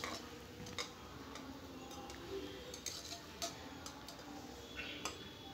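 Steel ladle knocking and scraping against the sides of an aluminium pressure cooker while stirring onions, garlic and green chillies in frying coconut oil: a scattering of light, irregular ticks over a faint sizzle.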